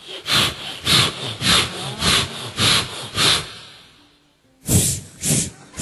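A man imitating a handsaw with his mouth: rhythmic hissing back-and-forth strokes, a little under two a second, breaking off for about a second near four seconds in before the strokes start again.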